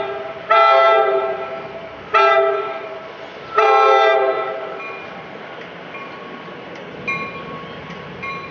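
NJ Transit commuter train's air horn sounding the grade-crossing signal: the end of one long blast, then a long, a short and a long blast, each a steady multi-tone chord. After the last blast the train's rumble grows as it rolls into the crossing, with a few faint metallic pings.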